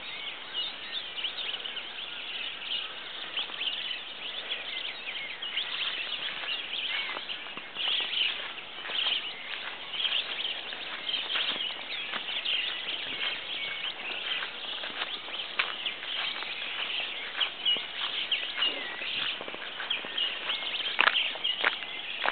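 Dawn chorus of many birds calling and chirping at once: a dense, unbroken twittering of short high calls, with a few louder, sharper calls near the end.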